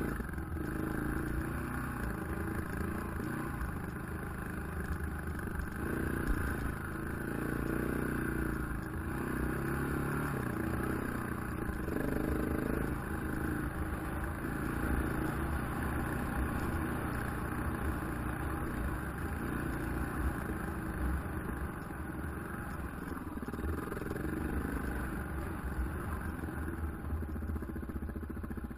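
KTM 690 enduro motorcycle's single-cylinder four-stroke engine running under way on a dirt trail, its pitch rising and falling continually.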